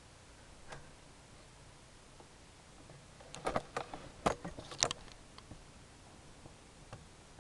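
Camera handling noise: a faint click, then a cluster of sharp clicks and knocks lasting about two seconds midway, over a faint steady hiss.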